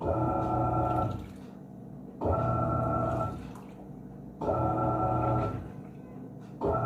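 Panasonic 14 kg washing machine agitating a load in the wash stage. Its motor hums in about one-second spells, roughly every two seconds, as the drum or pulsator turns one way and then the other. Water sloshes in the pauses between.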